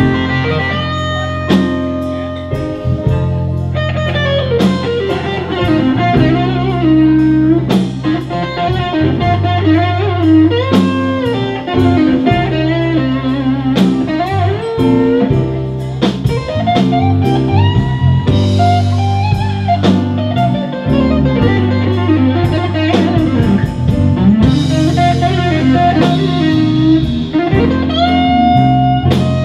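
Live blues band playing an instrumental jam, led by electric guitars (a Stratocaster-style and a Les Paul-style), over a steady beat with drums.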